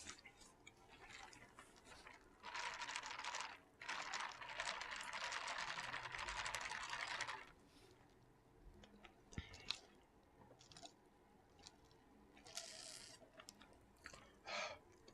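Close-miked eating noise: a dense crunching crackle in two stretches of about one and three and a half seconds, then scattered small clicks.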